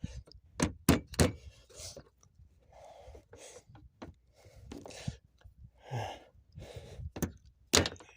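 Sharp knocks of a wooden block tapping plastic MC4 solar connectors to force them together: four in quick succession in the first second and a half, then two more near the end. Heavy breaths are heard between them.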